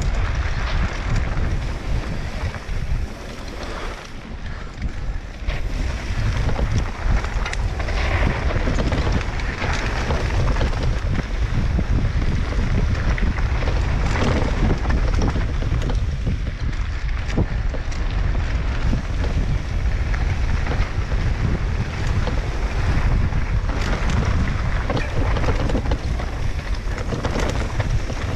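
Wind buffeting the microphone of a mountain bike descending fast, over a constant rumble of tyres on rough trail and frequent rattles from the bike. The noise eases briefly about four seconds in.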